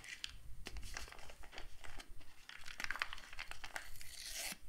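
Sports-drink sachet crinkling in the hands and being torn open, a dense patch of crackling and tearing from about three seconds in and again near the end.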